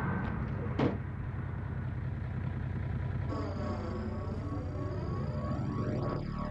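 Vehicle engine rumbling steadily, with one short sharp sound just under a second in. From about halfway the sound takes on a sweeping, whooshing quality and faint high tones come in.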